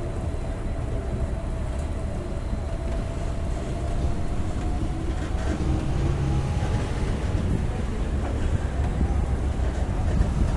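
Tram running, heard from on board: a steady low rumble with a faint whine running through it that rises slightly about halfway through.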